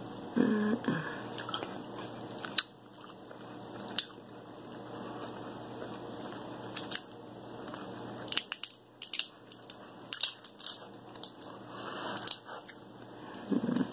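King crab leg shells being cracked and picked apart by hand, with irregular sharp clicks and crackles of shell, thickest in the second half, along with eating sounds.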